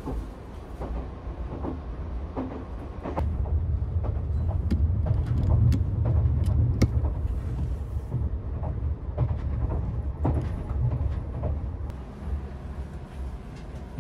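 Kintetsu "Blue Symphony" limited express electric train heard from inside the passenger car: a low running rumble with scattered clicks and knocks from the wheels and carriage. It grows louder in the middle, then eases toward the end as the train draws into a station.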